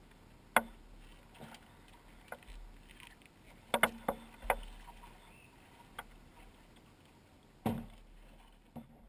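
Scattered sharp knocks and thumps on a canoe's hull while boats are handled at the shoreline: a loud knock about half a second in, a cluster of knocks around four seconds in, and a heavier thump near eight seconds.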